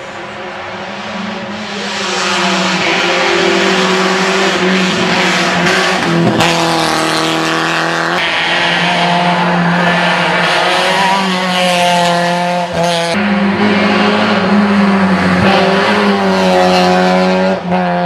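Rally cars at full throttle on a tarmac stage: the engine note climbs and drops again and again as the drivers run up through the gears and lift for corners. The sound changes abruptly about two-thirds of the way through, as another car takes over.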